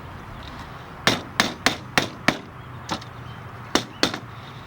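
Hammer tapping the aluminium top piece of a greenhouse roof window frame down onto its corner connectors: about eight sharp knocks starting about a second in, several in quick succession and then a few spaced out.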